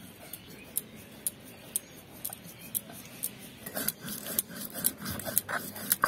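Stone roller of a sil-batta rubbed back and forth on the wet stone slab, grinding cumin and black pepper into a paste. Stone ticks on stone about twice a second, then from a little past halfway the strokes turn faster and louder, with scraping and clicking.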